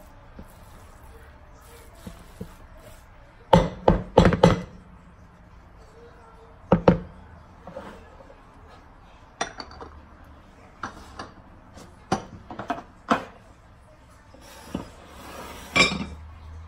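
Wooden spoon knocking against an enamel mixing bowl as a vermicelli filling is mixed: a quick run of four sharp knocks a few seconds in, a single knock a few seconds later, then scattered lighter knocks.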